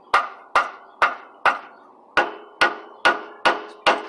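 Hammer beating a bent metal U-joint strap back into shape: about nine ringing metal blows, roughly two a second, with a short pause a little before halfway.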